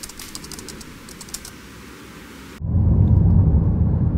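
A quiet hiss with a quick run of light clicks. After an abrupt cut about two and a half seconds in, a loud low rumble of road and wind noise from a moving car.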